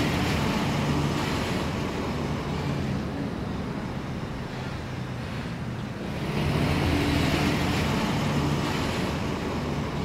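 Road traffic going by, a steady rumble of passing vehicles with a low engine hum that eases off midway and swells up again about six seconds in.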